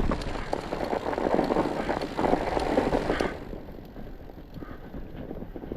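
Fat-bike tires fitted with chains crunching and crackling over snow as the bike is ridden, loudest for the first three seconds, then quieter.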